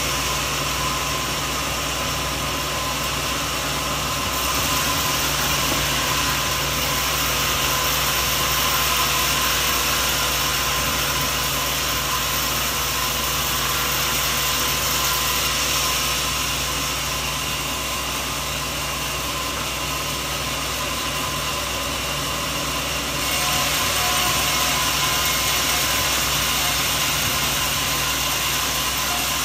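Sawmill machinery running steadily: a continuous mechanical drone with a constant hum, getting slightly louder about four seconds in and again near the end.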